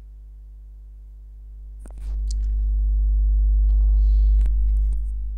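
Hot air rework station blowing at low airflow during glue removal: a low rumble of air swells up about two seconds in, peaks near the end and eases off, over a steady electrical hum, with a few light clicks of tool handling.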